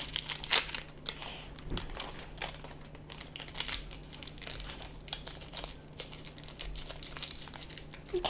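Thin pink plastic wrapper of an L.O.L. Surprise accessory packet crinkling as it is torn open and handled by fingers, in a dense run of short, irregular crackles.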